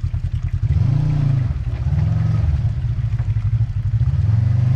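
Side-by-side UTV engine revving in three surges, the revs rising and falling back between them, over a lumpy, pulsing idle.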